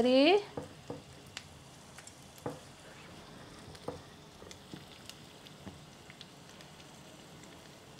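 Sliced shallots and garlic sizzling gently in hot oil in a stainless steel pan, with scattered small pops and crackles.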